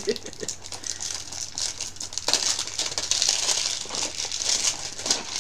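Toy packaging being handled and opened, crinkling and rustling, louder from about two seconds in.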